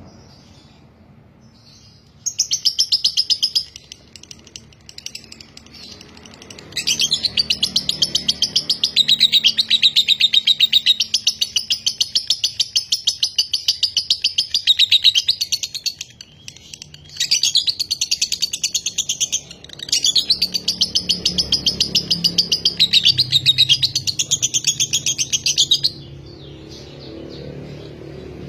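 A Fischer's lovebird chattering in long, very rapid runs of high chirps, the non-stop 'ngekek' song that makes a lovebird 'konslet'. There is one short run, then three long ones of several seconds each, the longest about nine seconds, with brief pauses between.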